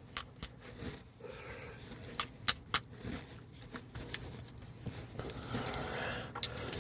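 Scattered sharp clicks and clinks of hand tools, a socket and wrench, on the shock absorber mounting hardware: a few near the start, three in quick succession a little after two seconds, and one more near the end, with faint handling and shuffling between them.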